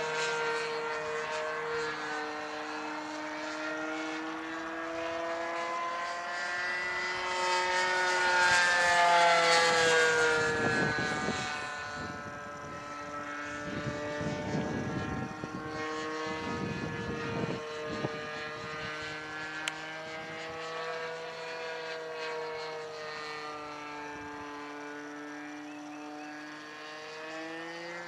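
Ultimate aerobatic RC model plane flying overhead, its engine and propeller droning. The pitch rises and falls slowly as it manoeuvres, and it is loudest about eight to ten seconds in.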